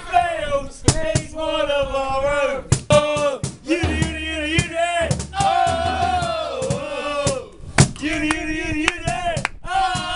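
Male football supporters singing a chant together in a clear melodic line, with sharp hits between phrases.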